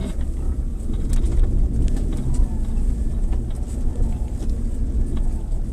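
Off-road 4x4 vehicle's engine running with a steady low rumble, with scattered light clicks and knocks over it.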